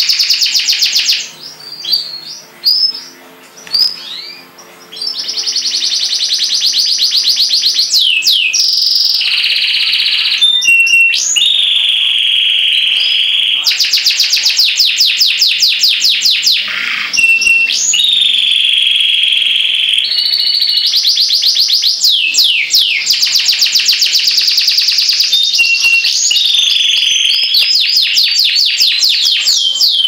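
Domestic canary singing a long, nearly unbroken song of fast rolling trills and rattling pulsed phrases with high sweeping whistles. A few seconds in, the song drops to softer scattered notes before it resumes at full strength.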